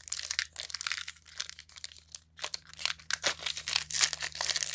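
Wrapper of a 2020 Topps Heritage baseball card pack being torn open and crinkled in the hands, a dense run of irregular crackles.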